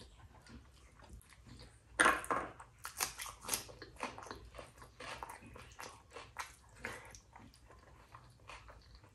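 A person eating rice and curry with loud wet chewing and lip-smacking. It is quiet at first, then a loud smack comes about two seconds in, followed by a quick run of wet mouth clicks that eases off near the end.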